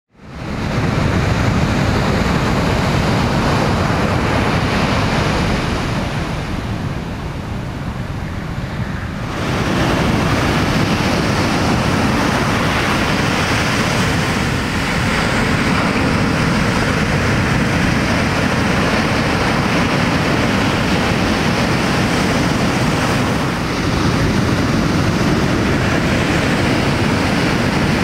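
Ocean surf breaking over a shallow coral reef: a steady wash of breaking waves, with wind buffeting the microphone. The sound fades in at the start and turns abruptly louder and brighter about nine seconds in.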